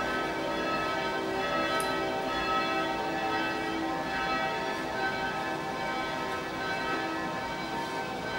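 Electrically rung church bells of the former Christophoruskirche in Hamburg-Altona ringing together, their tones overlapping in a steady peal.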